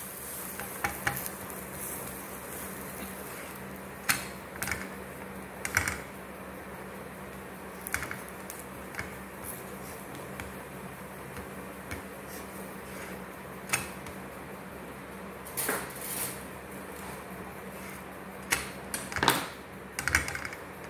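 Spatula pressing and turning a paratha on a flat tawa, with scattered short knocks and scrapes of the spatula against the pan, several close together near the end, over a steady low hum.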